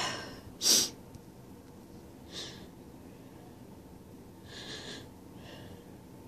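A congested person's nose and breathing: a loud, sharp nasal blast just under a second in, then three quieter sniffs spread over the next few seconds.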